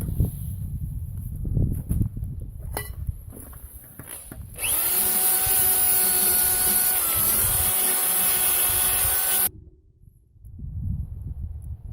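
Handling clicks, then a pressurised jet hissing with a steady whine for about five seconds while the brake and hub area is cleaned. The whine dips briefly partway through, and the jet starts and stops abruptly.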